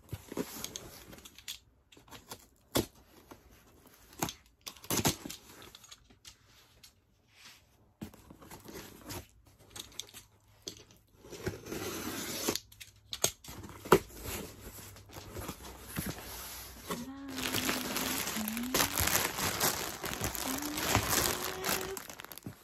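A cardboard shipping box being opened by hand, with scattered tearing and knocks over the first half. From about 17 s in, steady crinkling as a plush toy in a clear plastic bag is lifted out and handled.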